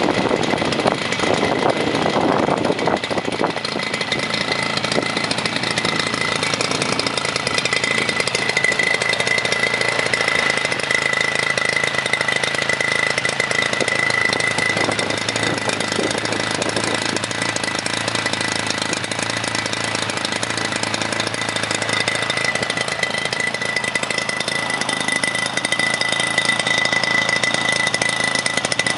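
Zenoah G62 single-cylinder two-stroke gasoline engine running at a steady speed, turning a Biela four-blade 20x10 propeller, with a steady high tone over the engine note.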